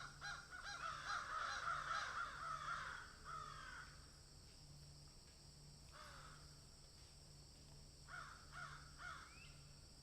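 An animal calling: a rapid string of short, pitched calls over the first four seconds, one call about six seconds in, and another short string near the end.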